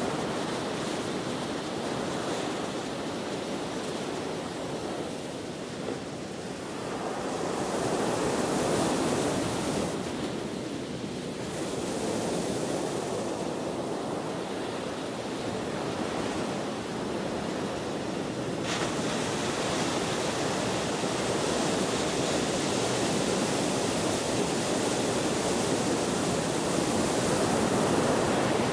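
Ocean waves breaking and washing in a steady rushing surf, swelling and ebbing every few seconds, with wind.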